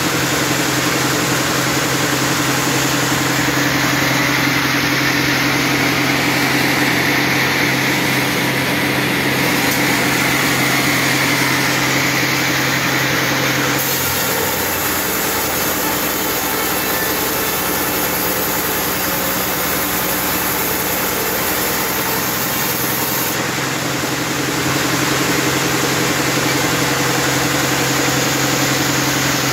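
Large log band sawmill running, a steady mechanical hum with constant low tones and a hissing haze above it. The sound shifts abruptly about halfway through and shifts back near the end.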